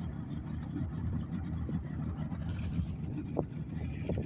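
A boat motor running steadily, a low, even rumble, with a brief hiss a little past halfway.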